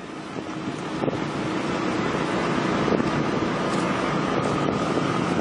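Steady rushing noise of road traffic that swells over the first two seconds and then holds, with a faint steady hum.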